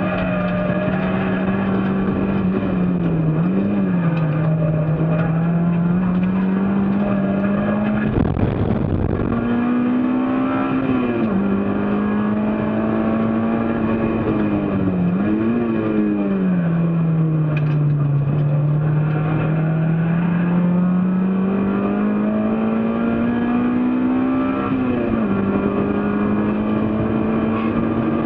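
Race car's engine running hard, its note climbing steadily through the revs and dropping suddenly on upshifts about 11 and 25 seconds in, with short throttle blips on downshifts around 4 and 15 seconds. A second-long rush of rough noise cuts in about eight seconds in.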